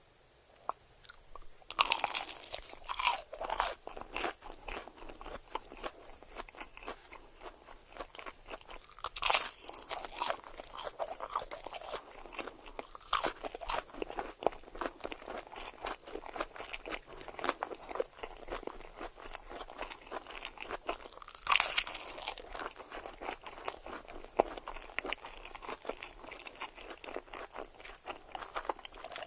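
Close-miked eating of crispy breaded mozzarella cheese sticks: four loud crunching bites, each followed by steady crackly chewing. The first bite comes about two seconds in.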